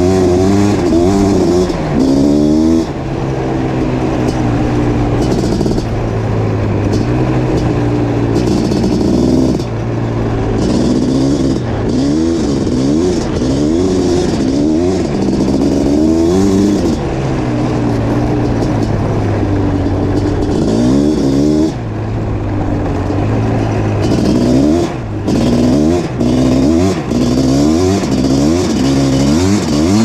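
Suzuki LT500R Quadzilla's 500cc two-stroke engine, fitted with an FMF Fatty pipe and Powercore silencer, revving up and falling back again and again under hard acceleration. The loud sound drops briefly now and then as the throttle comes off, several times in the second half.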